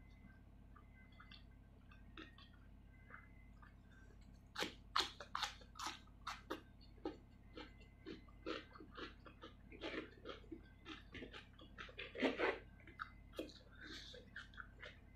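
Close-miked mukbang chewing: a person eating a meal of rice, spicy salted fish and cucumber. It is quiet at first, then about four seconds in comes a quick, irregular run of mouth clicks and smacks as a mouthful is chewed.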